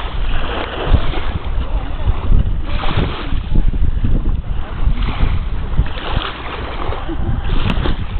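Wind buffeting the microphone in loud, uneven gusts over the rush of sea water.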